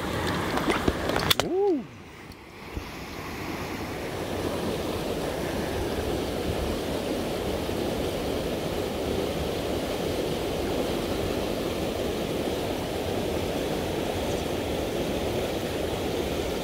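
Hand-splashing in shallow river water as a brown trout is released, ending in a sharp click and a short tone that rises and falls. After that comes a steady rush of river water pouring over a weir.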